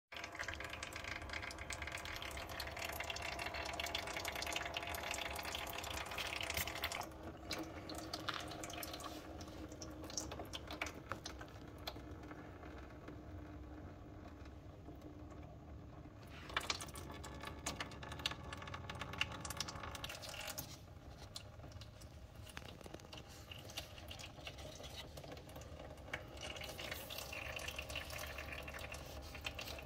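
Engine oil trickling and dripping from beneath a riding mower's engine, with a few small clicks of handling.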